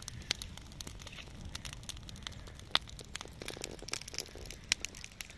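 Small wood campfire crackling: irregular sharp pops and snaps over a low rumble.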